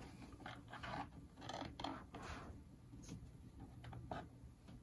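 Plastic pry tool scraping along the seam of an ASUS Vivobook 15's plastic bottom cover as it is pried off the chassis, in a series of short, faint scrapes and crackles, then a few light clicks.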